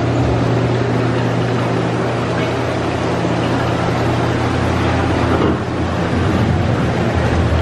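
Simulated rainstorm in a dark-ride boat's rainforest scene: steady rushing rain and water noise over a low, even hum, with a slight dip and change about five and a half seconds in.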